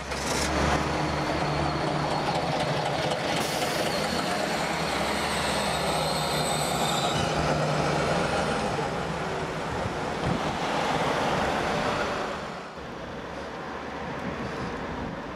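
Diesel bus engine running as the bus pulls away, with high whining tones over it in the first half. The sound drops off sharply about twelve and a half seconds in.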